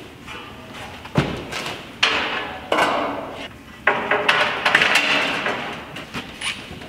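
Ribbed steel wall panel being lifted and pressed into place against the wall, its sheet metal flexing and banging in several sudden bangs, about a second apart, each fading off in a rattle.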